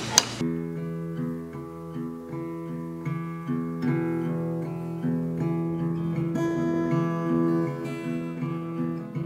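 Acoustic guitar playing a repeating picked pattern as a song intro, before any singing, opening with one sharp tap.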